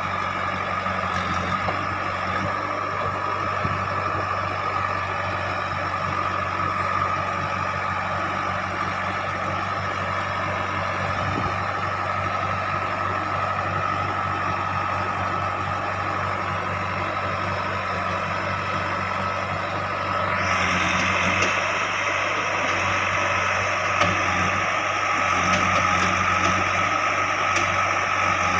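JCB 3DX backhoe loader's diesel engine running steadily with a constant whine. About two-thirds of the way through it grows louder, with a harsher, higher-pitched noise added.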